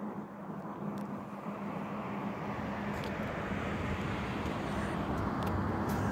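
A Nagoya Rinkai Railway diesel locomotive's engine running with a steady low hum, growing gradually louder.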